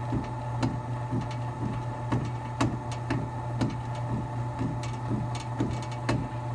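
1978 Sears belt-drive garage door opener running the door up: a steady motor hum with a regular clack about twice a second.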